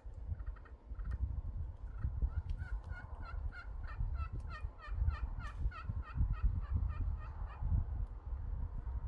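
Wild turkey calling: a long, even run of yelping notes, about four a second, starting about two seconds in and lasting some five seconds. Under it is a low rumble on the microphone.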